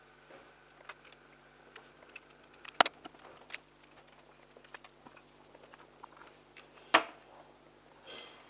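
Quiet clicks and taps of hands working a hot glue gun on crossed wooden chopsticks, with two sharper knocks about three and seven seconds in, over a faint steady hum.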